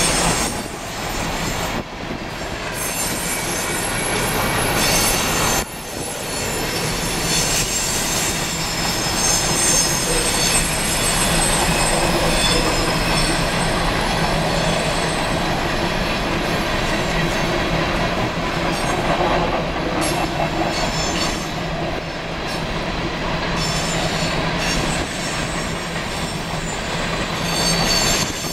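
Coal hopper cars of a BNSF freight train rolling past, steel wheels squealing on the rails in several high, steady tones over a continuous rumble of the cars.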